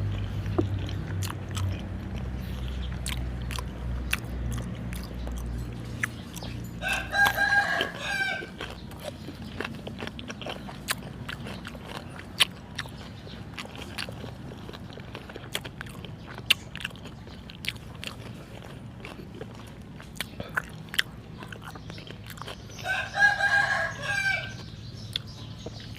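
A rooster crows twice, each crow about a second and a half long and some fifteen seconds apart, over close-up chewing and biting of food with scattered small clicks.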